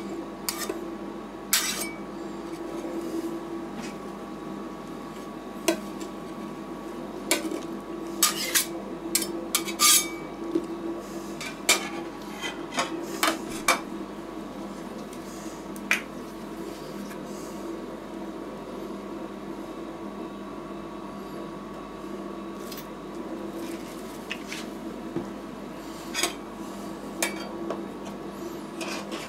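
Metal spatulas clinking and scraping on the frozen stainless-steel plate of a rolled ice cream machine, in scattered sharp taps, thinning out to a quieter stretch in the middle and picking up again near the end. A steady hum from the machine's refrigeration unit runs underneath.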